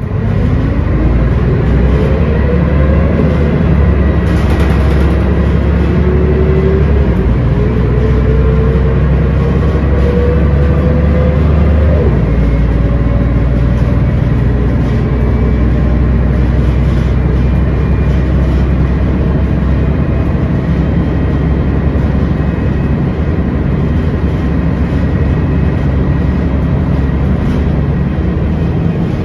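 Scania L113CRL bus's rear-mounted straight-six diesel engine, heard from inside the passenger cabin, pulling away and accelerating. Its pitch climbs, drops at an upshift about three seconds in, climbs again, and drops at a second upshift about twelve seconds in. After that it runs steadily at cruising speed.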